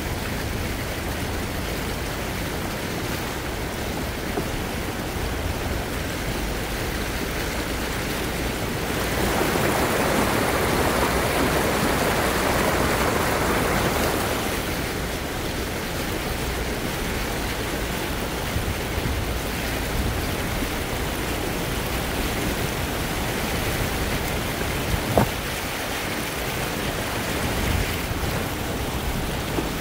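Steady rushing noise of moving water with wind on the microphone. It swells louder for about five seconds near the middle, and there is a single sharp knock near the end.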